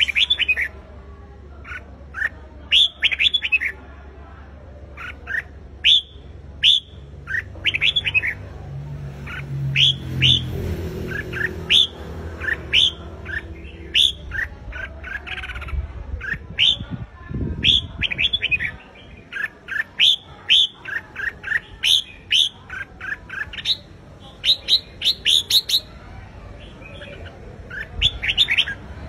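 Red-whiskered bulbul singing its loud competition song: quick phrases of short whistled notes that sweep up and down, repeated one after another.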